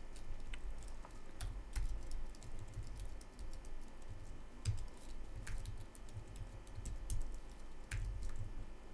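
Computer keyboard typing: irregular keystrokes clicking in small runs with short pauses between them.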